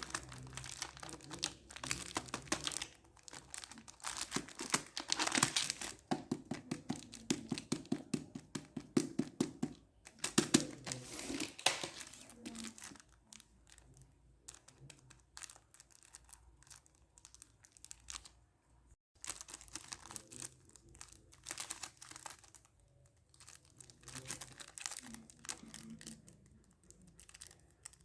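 Packaging being handled and unwrapped, crinkling and tearing in quick crackles, busiest in the first half and sparser after about twelve seconds.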